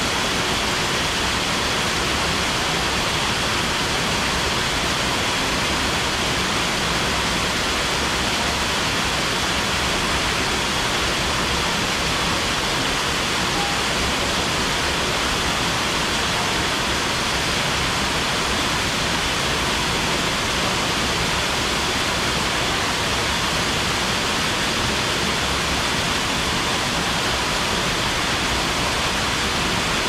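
Waterfall pouring, a steady unbroken rush of falling water.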